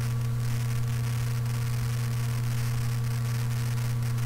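Steady electrical hum with hiss in the recording microphone's signal chain: a strong low buzz with a few fainter higher overtones and an even hiss over it, unchanging throughout. The microphone's noise suppression is switched off, so the line noise comes through at full strength.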